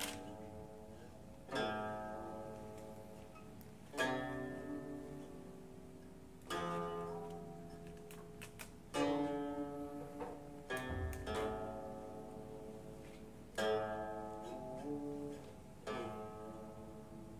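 Slow plucked-string instrumental music in a zither-like style: a chord struck about every two and a half seconds, each one ringing out and fading, with a brief run of quicker notes partway through.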